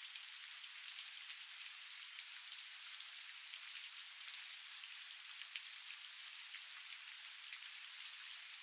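Steady rain falling, an even hiss with many individual drops heard as small sharp ticks. No thunder.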